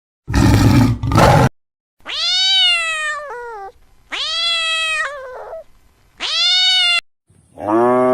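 Domestic cat meowing three times, each call rising and then falling in pitch, after a short harsh noisy burst near the start. A cow's low moo begins near the end.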